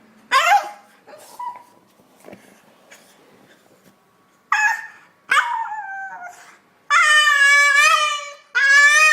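A dog howling and whining: a short rising yelp near the start, then from about halfway a series of long, wavering howls that grow louder, the longest lasting about a second and a half.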